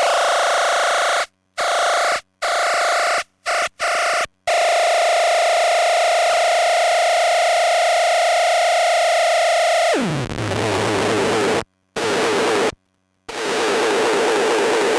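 Harsh noise from a chain of effects pedals: a feedback-looper drone driven through a sub-octave synth fuzz, cut to sudden silence several times by a momentary switch. About ten seconds in the pitch drops sharply, and the sound turns into a sputtering buzz with two more cut-outs.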